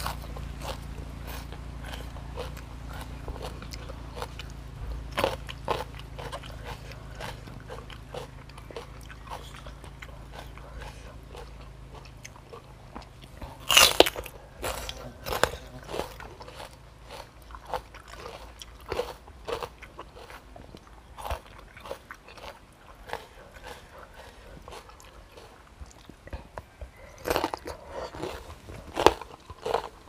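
A person chewing and crunching fresh leafy vegetables and raw seafood close to the microphone, with many small wet clicks and a few louder sharp sounds about halfway through and near the end.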